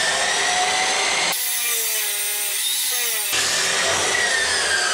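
Abrasive chop saw cutting through 3-inch mild-steel exhaust pipe: a loud, continuous grinding whine of the cut-off wheel in the metal, with an abrupt change in tone between about one and three seconds in.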